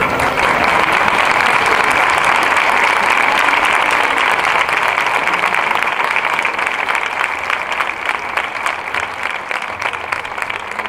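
Large crowd applauding, a dense steady clapping that thins out in the second half into more distinct, separate claps.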